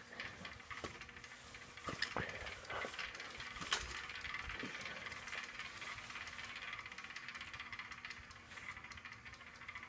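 Hampton Bay St. Vincent ceiling fan being run: a few clicks in the first few seconds, then the fan running with a faint steady hum and an even rush of air.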